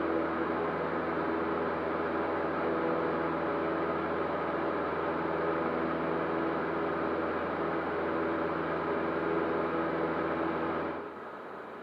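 Cessna 152's four-cylinder Lycoming engine and propeller droning steadily, heard from inside the cockpit. Near the end the sound drops sharply and the low engine tones fall away.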